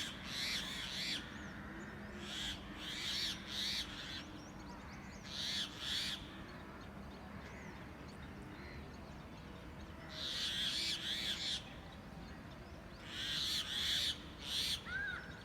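Parrots screeching in harsh bursts that come in clusters several times, with faint chirping from other birds between them. Near the end come two short rising-and-falling calls.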